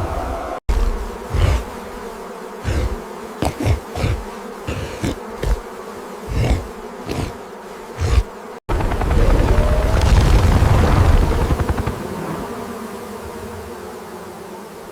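A swarm of bees buzzing steadily, with a string of heavy thumps over the first eight seconds or so and a loud rumbling swell about nine seconds in that fades back to the buzz.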